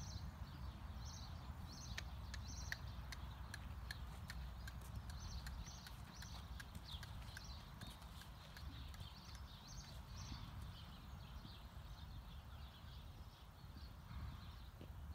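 A horse stepping on a dirt arena, with a run of sharp clicks a few seconds in, then quieter. High chirping goes on in the background over a steady low rumble.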